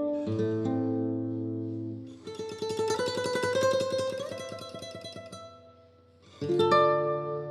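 Plucked-string instrumental music: a few separate plucked notes, then about two seconds in a rapid run of repeated strummed strokes that fades away, and a new strummed chord near the end.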